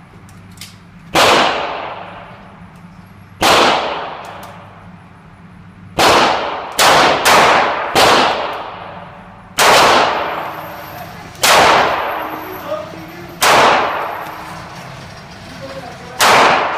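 About ten gunshots at irregular intervals, a few coming quickly one after another. Each is a sharp crack followed by a long echoing decay of about a second.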